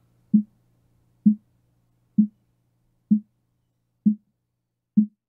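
Snare drum hits from a stereo drum mix heard through a narrow EQ band tuned to about 220 Hz and a noise gate, so only the snare's resonant note gets through. There are six short pitched thumps, about one a second.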